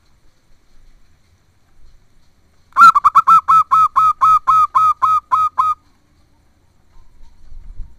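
Zebra dove calling: a rapid run of about a dozen short, loud cooing notes, each falling in pitch, about four a second. It starts about three seconds in and lasts about three seconds.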